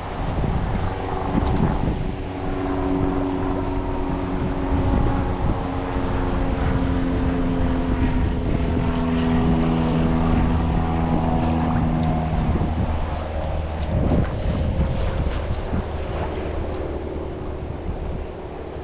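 A motorboat engine running steadily, with wind buffeting the microphone.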